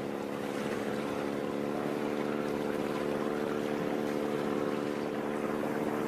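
Small fishing boat's engine running at a steady speed, a constant even hum.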